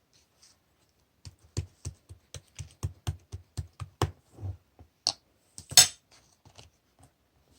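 Gold pearl slime being handled and pressed, making a quick run of sticky clicks at about four a second, then a few slower ones, the loudest about three-quarters of the way through.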